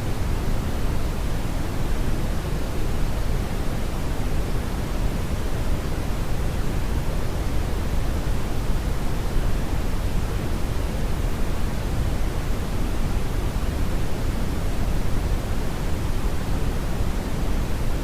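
Brownian (red) noise: a steady, even hiss-rumble with most of its weight in the low end, falling off toward the highs, unchanging throughout.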